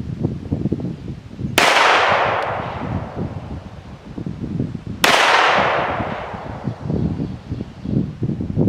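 Two single pistol shots about three and a half seconds apart, each with a long fading echo: slow, deliberate trigger-isolation fire. Wind buffets the microphone throughout.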